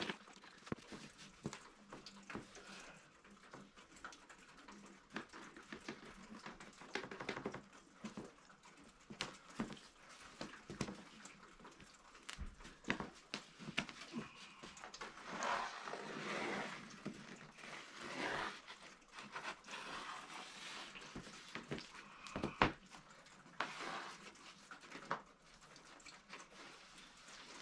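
Pencil scratching along the edge of an old van wall panel as it is traced onto a birch plywood sheet, with scattered knocks and scuffs from the panels and from knees and hands shifting on them. The scratching is longest and loudest a little past the middle, and a sharp knock a bit later is the loudest sound.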